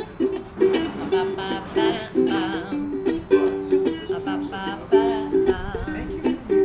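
Ukulele playing a rhythmic instrumental passage of quick plucked and strummed notes.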